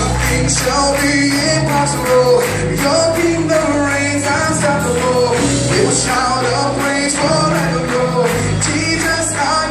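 Live worship band and singers performing an upbeat song, with a steady drum beat under the sung melody.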